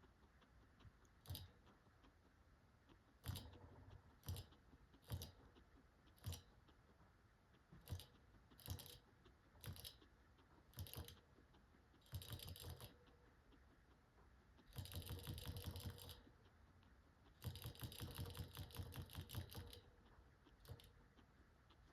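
Guinea pig crunching dry pellets: single crisp bites about once a second, then three runs of rapid chewing a second or two long in the second half.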